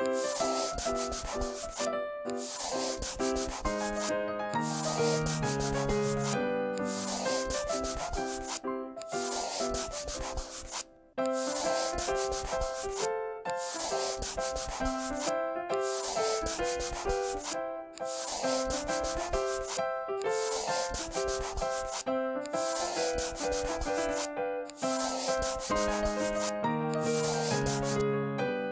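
Marker scribbling across paper in long strokes, with short breaks about every one to two seconds, over a light children's tune.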